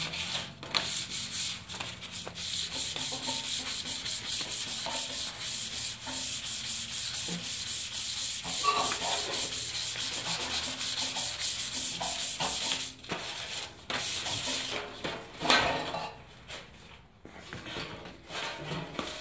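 Hand sanding the painted clear coat of a car fender with 400-grit wet-or-dry sandpaper on a hand block, fast back-and-forth scuffing strokes about three a second; this scuffing preps the surface so the new base coat will adhere. The strokes thin out and pause in the last few seconds.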